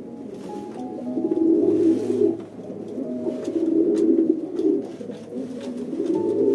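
A bird calling in low, repeated phrases about a second long, four or so in a row, over soft background music.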